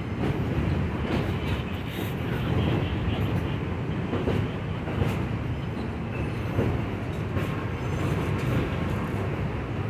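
New York City subway train rolling past along the platform: a steady low rumble, with scattered clacks from the wheels on the rails.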